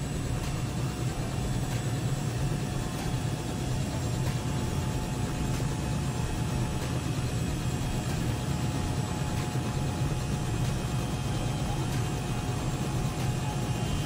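Light tour helicopter running at idle on the ground, a steady engine-and-rotor drone with a fast even flutter.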